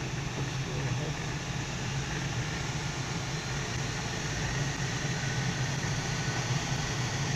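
Steady rush of air over the canopy of a Duo Discus glider in flight, with a low hum underneath, getting slightly louder as airspeed picks up.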